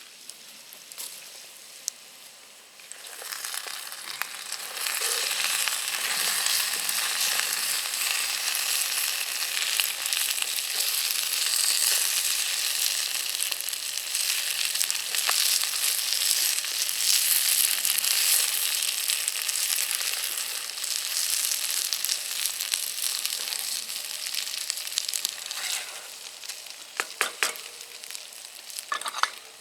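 Food sizzling as it fries in a pan over a campfire, a steady hiss that grows louder a few seconds in and eases near the end, with a few sharp clicks.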